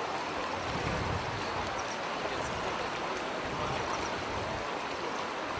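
Fast-flowing floodwater of a river that has burst its banks, rushing in a steady wash of noise.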